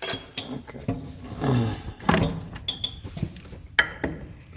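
Scattered knocks and clunks of hand tools at work on the engine, with the sharpest knock about two seconds in and another near the end. A short, low voice sound that falls in pitch, like a grunt, comes about a second and a half in.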